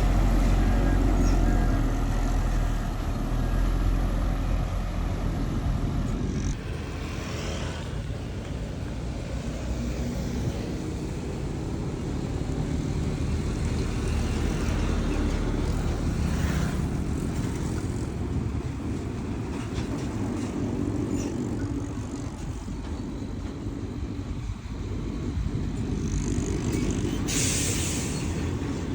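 Diesel engines of dump trucks and a bulldozer running with a deep, steady rumble. A short burst of hiss comes near the end.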